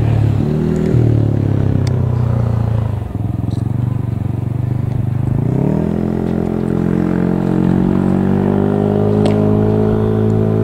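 An engine running steady throughout, rising in pitch about six seconds in and then holding at the higher pitch.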